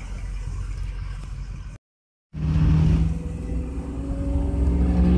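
Engine and road noise inside a moving car on a highway. The sound cuts out for about half a second around two seconds in, then comes back louder as a steady engine drone.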